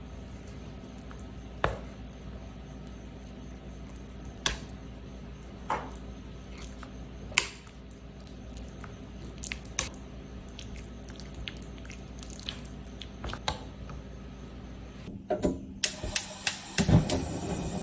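Chopsticks stirring chicken pieces in thick batter in a stainless steel container, with squelching and scattered sharp taps of the sticks against the metal, over a steady low hum. Near the end comes a quick run of clicks and knocks around a frying pan on a gas stove.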